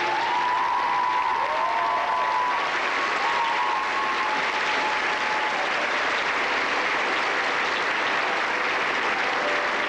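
Theatre audience applauding steadily, with a few sliding whistles over the clapping in the first half.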